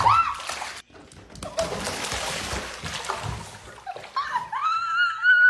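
Water splashing and sloshing in a bathtub for a couple of seconds. It is framed by a short rising cat meow at the start and a long, drawn-out meow near the end.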